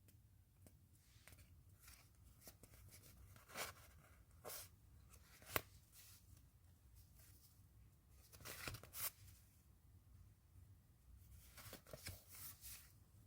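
Faint rustles and light taps of packaging and small items being handled, in short separate bursts with a sharper click now and then.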